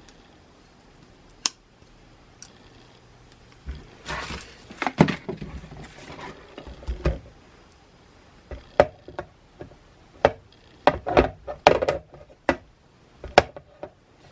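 Handling noises from an object being unboxed: scattered sharp clicks and knocks, with a burst of rustling about four seconds in and a quick flurry of knocks near the end.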